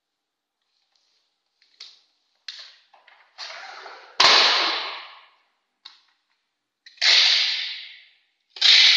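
Paper banner rustling and the aluminium base of a retractable banner stand being handled, with small clicks, then a sharp crackling rip about four seconds in. Near the end, packing tape is ripped off a handheld dispenser twice, each rip starting sharply and fading over about a second.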